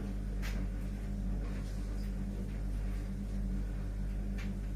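A spatula scraping and tapping in a pan of fried rice a few times, about half a second in and again near the end, over a steady low hum.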